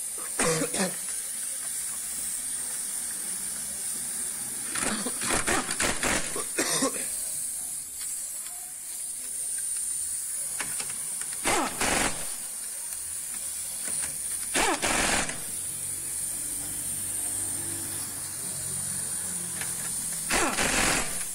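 Pneumatic impact wrench hammering on the wheel bolts of a Renault Clio 4 in several short bursts of about a second or less, a few seconds apart, over a steady high hiss.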